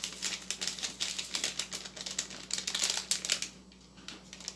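Dried rosemary shaken and tapped out of a plastic sachet into a small plastic pot: a quick, dense run of dry crackling ticks and packet crinkle that stops about three and a half seconds in.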